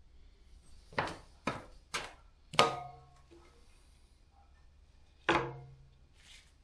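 Metal parts knocking against a workbench: four knocks in quick succession starting about a second in, then one more near the end. The fourth and fifth knocks are the loudest and each rings briefly with a low metallic tone.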